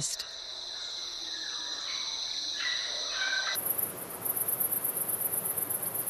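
Tropical forest ambience: a steady high insect chorus, with a few short bird whistles near the middle. About three and a half seconds in, the sound switches abruptly to a very high, fast-pulsing insect trill over a soft hiss.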